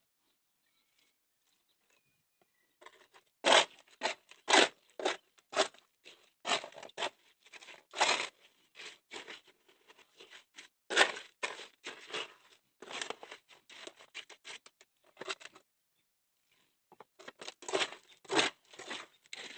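A small batch of concrete (cement, sand and gravel) being mixed with water by hand, as the water is worked into the dry mix. It makes irregular gritty scraping and crunching strokes, a few a second, starting about three seconds in, with a pause of about a second near the end.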